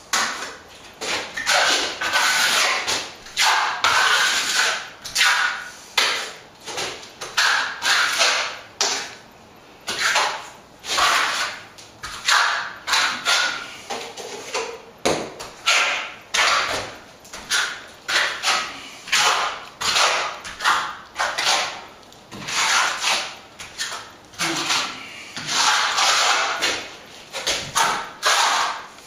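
Steel plastering trowel scraping across wet white set-coat plaster in quick repeated strokes, about one to two a second, as the finish coat is spread on a rendered wall.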